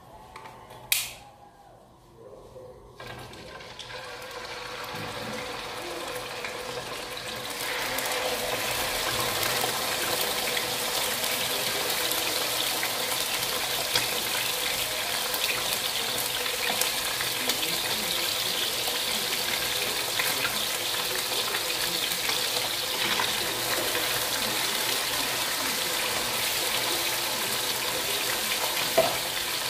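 Water running from a tap into a sink, coming on a few seconds in, building up and then running steadily. A single click about a second in.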